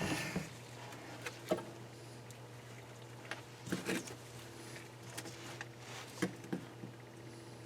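Sparse light clicks and taps of small metal parts and pliers being handled while fitting valve keepers on a cylinder head, over a steady low hum.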